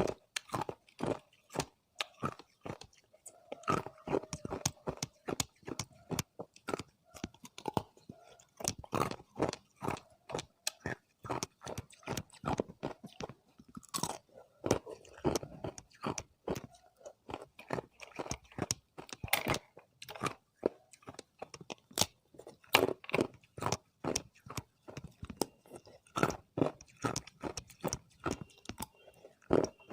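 Hard ice being bitten and chewed: a steady run of sharp, irregular crunches, several a second, with no pause.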